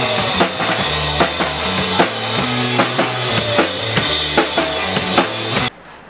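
Rock band playing live: a drum kit keeping a fast, steady beat under a stepping bass line and electric guitar. It cuts off abruptly near the end.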